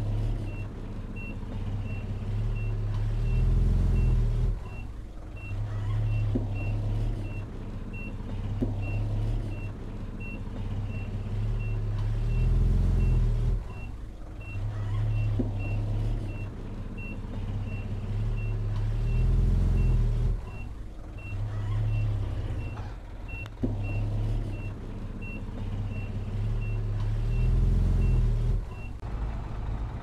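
Reversing alarm on heavy earthmoving equipment beeping steadily at about one and a half beeps a second, over a heavy diesel engine that rises under load about every eight seconds. The beeping stops near the end.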